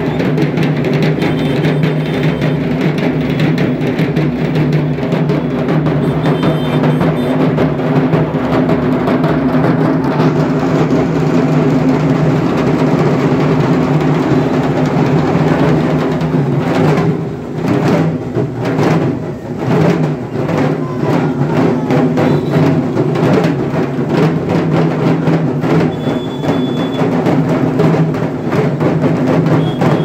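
About a hundred dhaks, the big Bengali barrel drums beaten with thin sticks, played together in a dense, continuous din. A little past halfway the mass of drumming breaks into separate loud strokes for a few seconds, then closes back into the full roll.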